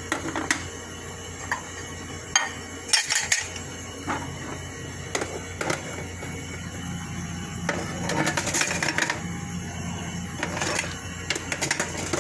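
Irregular clicks, knocks and clatter of kitchen items being handled, in clusters, over a low steady hum.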